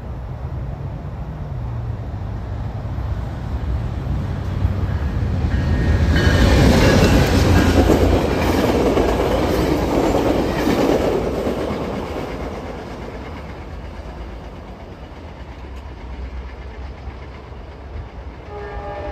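Tri-Rail commuter train of bilevel coaches passing close by, its wheels clattering over the rails. The sound builds, is loudest for about five seconds in the middle, then fades as the train moves off down the line.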